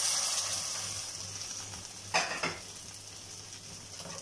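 Hot oily masala sizzling in a metal pot just after water is poured in, the hiss dying away over the first two seconds as the water settles. A metal ladle clatters against the pot about two seconds in.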